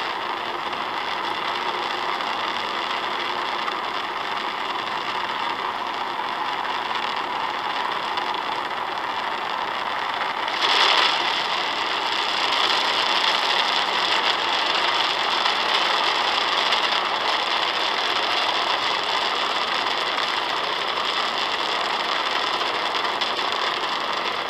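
Falcon 9 first stage's nine Merlin engines firing during the climb after liftoff: a steady, dense noise without deep bass, played through a screen's speaker. It gets louder suddenly about eleven seconds in.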